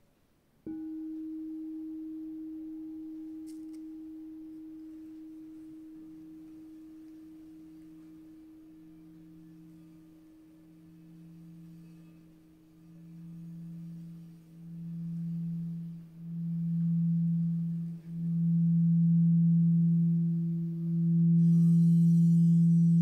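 Singing bowls: one bowl struck once, ringing with a pure tone that slowly fades. From about six seconds a lower, deeper tone swells in repeated pulses that grow steadily louder, as a bowl is rubbed around its rim. A bright high shimmer joins near the end.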